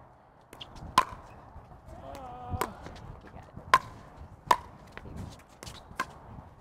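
Pickleball rally: paddles striking a plastic pickleball in a series of sharp pops, about one a second, with softer taps between them.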